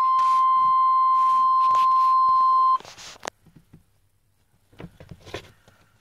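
1995 Chevy S10's dashboard warning tone at key-on: one steady high beep that cuts off suddenly about three seconds in. A few faint clicks and handling noises follow.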